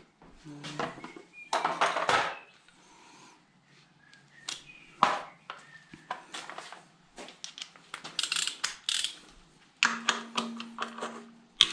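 Scattered metallic clinks and clatter of hand tools and sockets handled against metal, with a denser run of rattling a little past the middle. A short steady hum comes in near the end.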